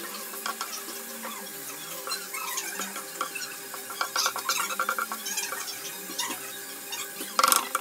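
Liver frying in its marinade on an iron tawa, sizzling, while a wooden spatula scrapes and clicks against the griddle as the pieces are stirred. A brief louder squeak comes near the end.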